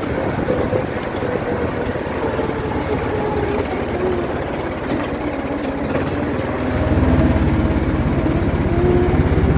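ATV engine running under way, its pitch sinking slowly and then climbing again as the throttle changes, with a heavier low rumble from about two-thirds of the way in.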